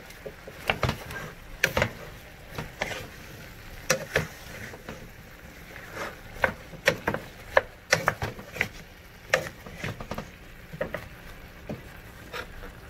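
Wooden spoon stirring chunks of yellow squash and peppers in a stainless steel pot, with irregular knocks and scrapes of wood against the metal and the vegetable pieces shifting.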